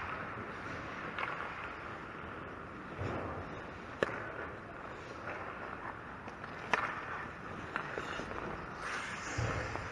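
Ice hockey rink sounds: skate blades scraping and hissing on the ice, with several sharp knocks from sticks and puck, the loudest about four seconds in and another near seven seconds.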